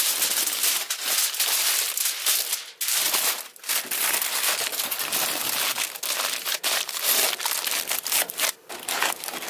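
Aluminum foil crinkling and crumpling as hands fold and press it into a tight packet around the food. The rustling is continuous, with short breaks about three seconds in.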